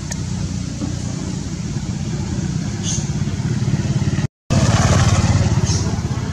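A steady low engine rumble, like a motorcycle running nearby, which cuts out for a moment a little after four seconds. A faint high chirp is heard near three seconds.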